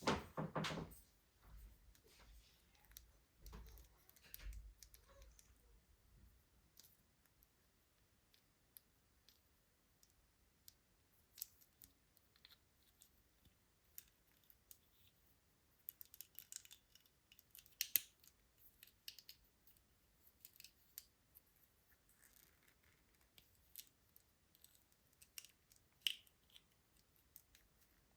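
Soft, scattered clicks, taps and crinkles of toy packaging being handled and opened, with a few low thumps in the first seconds and a busier run of sharper clicks about two-thirds of the way through.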